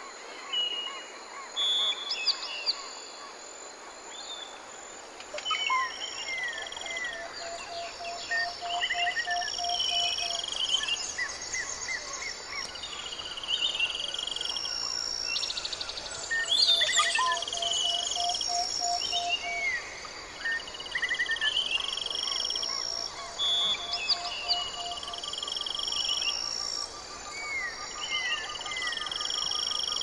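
A chorus of many birds calling at once over a steady background hiss: short whistled notes, quick sliding chirps, and a low call of evenly spaced notes repeated in runs of a few seconds, a typical tropical-forest soundscape.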